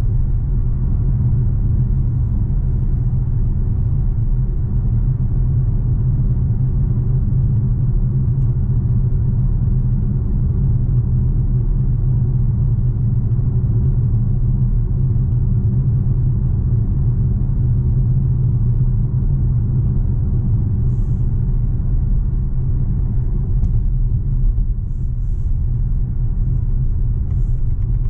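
Inside the cabin of a BMW X6 M Competition at motorway speed: a steady low rumble of tyre and road noise with the 4.4-litre twin-turbo V8 running under light load.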